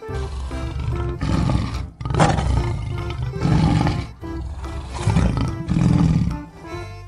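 Big cat roaring and growling in about five long bursts, a sound effect laid over light background music.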